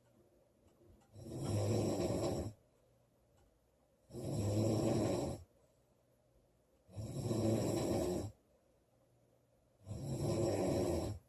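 A woman snoring loudly in a steady rhythm: four rasping snores, each just over a second long and about three seconds apart, with quiet gaps between.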